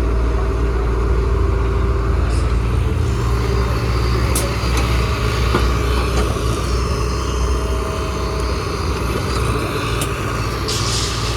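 Excavator's diesel engine running steadily under work, with a few short clicks and a brief hiss near the end.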